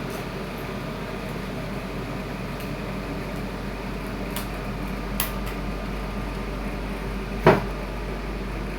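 O General window air conditioner running with a steady hum, broken by a few sharp clicks and one louder knock near the end.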